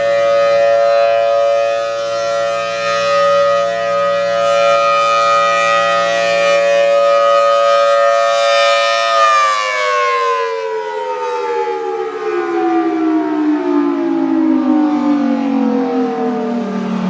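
Federal Thunderbolt 1003 outdoor warning siren sounding a steady tone during a scheduled test, then winding down about nine seconds in, its pitch falling slowly as it coasts to a stop.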